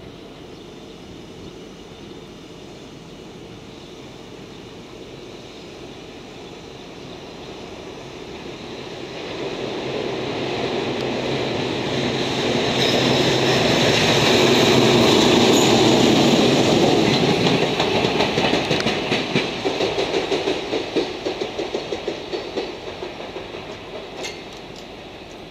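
JR Freight EF210 electric locomotive hauling a single brake van passes by: its running noise swells, is loudest about halfway through, then gives way to a rhythmic clatter of wheels over rail joints that fades as it draws away.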